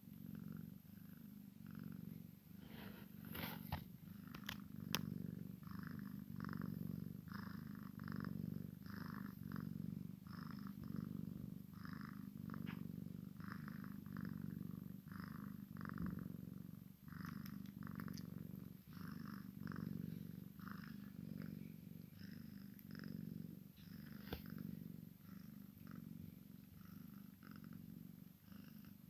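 A Sphynx mother cat and her nursing kitten purring up close, a steady purr that swells and fades with each breath. A couple of sharp clicks about three to five seconds in.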